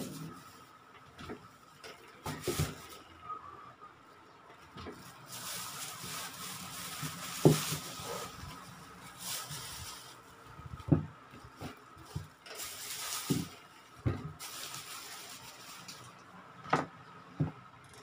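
Groceries being taken out and set down on a table: a series of irregular knocks and thumps, with stretches of plastic-bag rustling in between.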